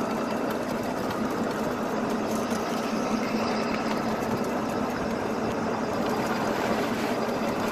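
Golf cart running, its motor giving a steady, unchanging hum with an even noise over it.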